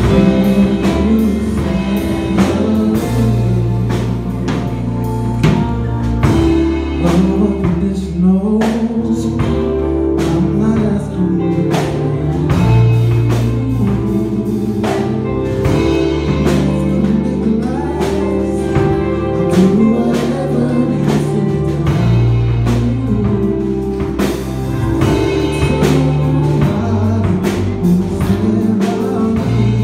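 A vocal group singing an R&B ballad live, backed by a drum kit and low sustained bass notes.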